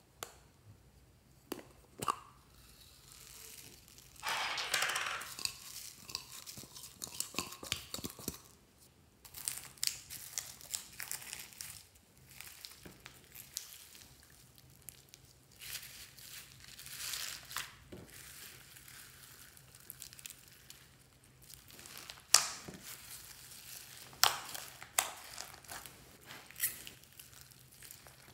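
Hands folding and kneading white slime loaded with foam beads and sequins: irregular crackling and crunching of the beads in the sticky slime, with scattered sharp clicks and pops. There is a denser stretch of crackling about 4 to 8 seconds in and a loud pop about 22 seconds in.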